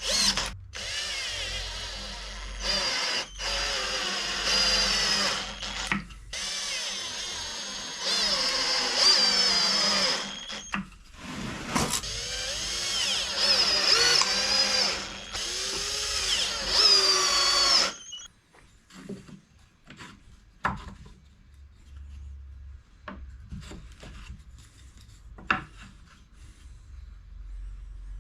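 A power tool runs in several bursts, its pitch wavering and sagging as it works under load, and stops about two-thirds of the way through. After that come a few light clicks and knocks of handling.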